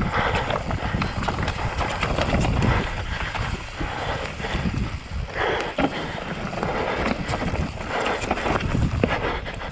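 Mountain bike descending a steep, rocky dirt trail: knobby tyres crunching over dirt, leaves, roots and stones, and the bike rattling with each small impact, with a few louder rushes and wind noise on the microphone.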